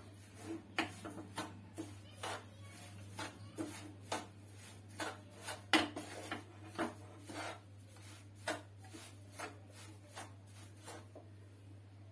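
Spatula scraping and knocking against a nonstick frying pan while stirring a dry flour, sugar and ghee mixture, in irregular strokes about once or twice a second. A steady low hum runs underneath.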